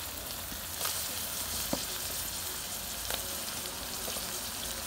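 Chopped onions and tomato sizzling steadily in hot coconut oil in a pan, with a few light clicks.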